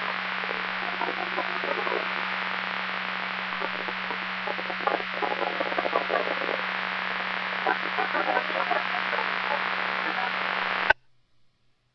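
Two-way radio receiver hiss from an open transmission carrying no clear voice, with a steady hum and faint broken sounds in the noise. It cuts off abruptly about eleven seconds in as the carrier drops.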